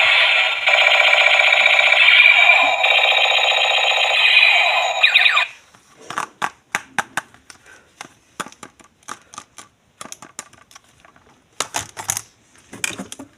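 A battery-powered toy's electronic sound effect: a loud, warbling, alarm-like tone that runs about five seconds and cuts off suddenly. After it come scattered light clicks and rustles of plastic toys and packaging being handled.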